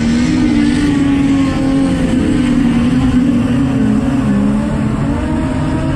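Modified sedan race cars' engines running hard on a dirt oval, several at once, their pitch rising and falling as they lift off and accelerate through the turns.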